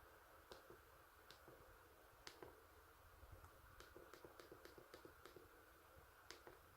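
Near silence with faint clicks of the Pantech&Curitel PG-L1200 folder phone's keypad buttons being pressed: a few single presses, then a quick run of about six clicks a second in the middle.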